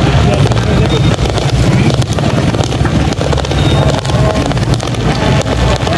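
Aerial fireworks popping and crackling in a rapid, continuous string, over a steady low rumble of wind on the microphone.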